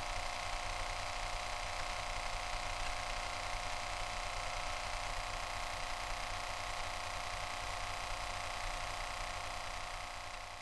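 A steady engine drone under a constant hiss, holding one pitch throughout and fading out near the end.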